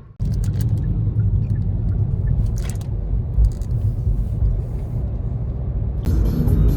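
Low, steady rumble with a few faint clicks and taps over it.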